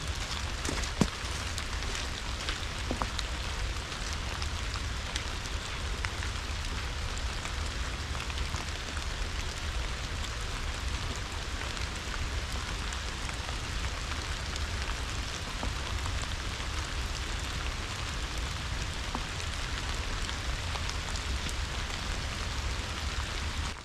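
Steady rain pattering, with many small drop ticks, over a steady low rumble. It drops away suddenly at the very end.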